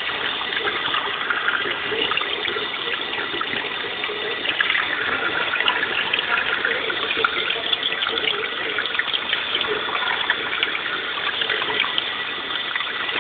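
Steady rush and splash of churning water.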